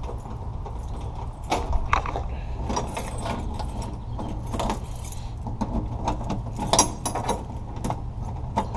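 A bunch of keys jangling, with irregular small clicks and knocks as a key is worked in a car door lock.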